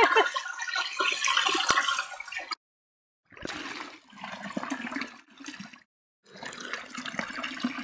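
Water pouring from a hose into a stone irrigation channel and running down a dug trench, a steady rushing that cuts out abruptly twice.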